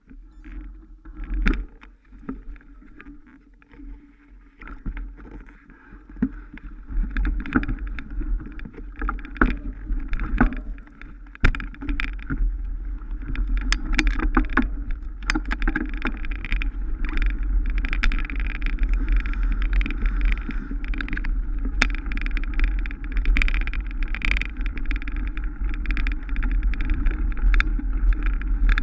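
Mountain bike ridden over rough trail: tyre noise and rattling with many sharp knocks over bumps, and wind buffeting the microphone as a deep rumble. It grows louder over the first several seconds, then stays steady.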